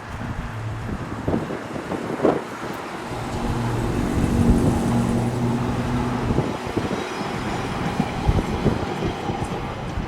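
A passing vehicle's motor hums steadily through street noise, with wind buffeting the microphone and a few short knocks.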